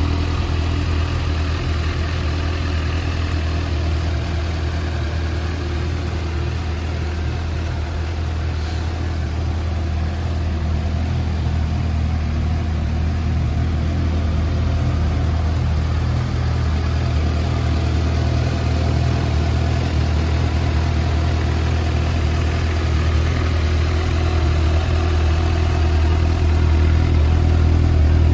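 Suzuki GSX-S750's 749 cc inline-four engine idling steadily, growing slightly louder toward the end.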